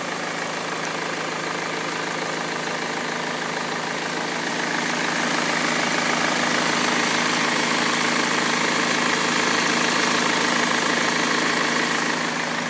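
BMW 320d E46 150 hp four-cylinder diesel engine running with a tractor-like noise that the owner takes to be abnormal. The sound is steady, getting somewhat louder about four seconds in and easing back near the end.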